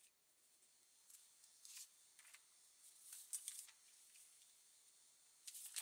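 Faint rustling and crinkling of paper and washi tape being handled, in short scattered bursts, with a louder cluster near the end.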